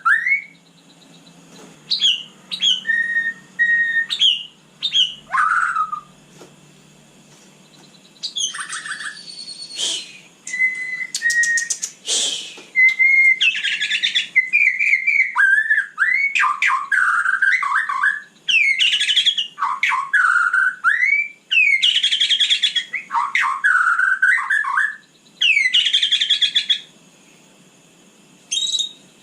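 White-rumped shama singing a varied song: clear whistled notes and swooping glides mixed with harsh, rasping chatter phrases, with short pauses between phrases.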